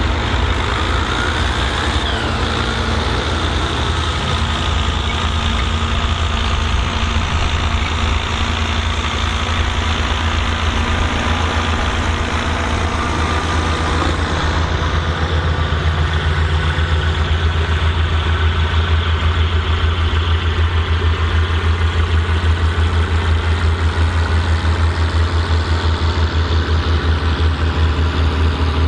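Volvo BM tractor's turbocharged diesel engine running with a turbo whistle that rises over the first two seconds and then holds. About halfway through, the whistle fades and the engine settles to an even, pulsing idle.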